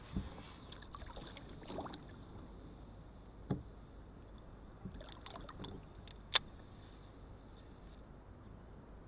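Faint scattered knocks and clicks of gear being handled aboard a small fishing boat, over quiet lake ambience with a faint steady high whine. The sharpest click comes about six seconds in.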